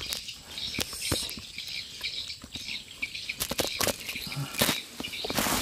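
Shirt fabric rubbing and brushing against a chest-mounted camera, with irregular footsteps and crackles through grass and undergrowth.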